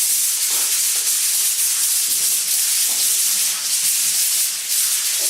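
Loud, steady hiss, like a jet of air or spray, held without a break.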